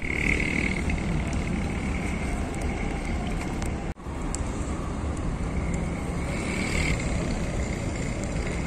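Outdoor street ambience: a steady rumble of road traffic, with a brief dropout about four seconds in.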